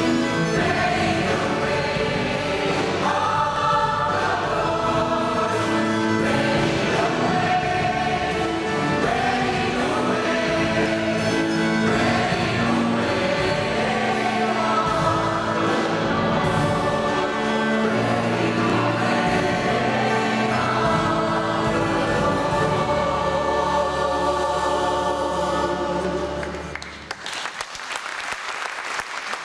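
Mixed choir singing a hymn with instrumental accompaniment, closing on a long held final chord. About three seconds before the end the music stops and applause breaks out.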